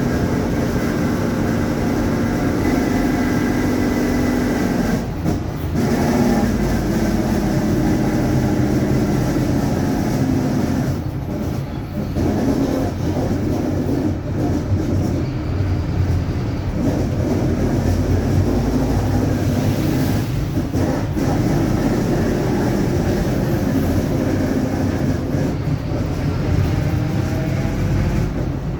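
Mercedes-Benz OF-1721 BlueTec5 bus running, heard from inside, its drivetrain giving a growling, whining tone from the rear differential that rises and falls in pitch with road speed. The sound dips briefly a few times, around 5 and 12 seconds in.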